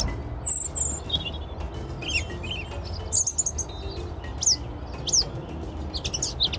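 Pet bird chirping: many short, high chirps and a few quick downward-sweeping whistles, over a low steady hum.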